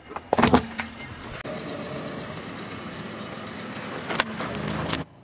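A car tyre rolling over small objects on asphalt: a loud crunch about half a second in, then the car running steadily as the tyre presses down on liquid-filled balloons, with a sharp pop about four seconds in.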